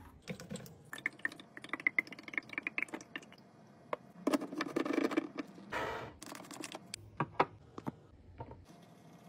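Containers and packaging being handled and set down while a fridge is restocked: a run of small clicks, taps and rattles, with a louder scraping stretch about four seconds in.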